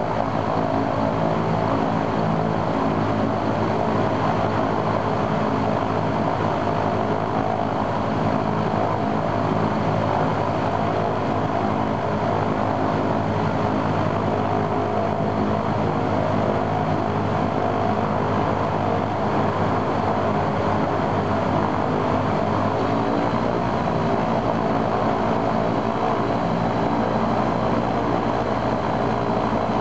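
Ilyushin Il-14's right engine, a Shvetsov ASh-82T 14-cylinder radial, running steadily with its propeller turning on a ground test run after its oil cooler was replaced.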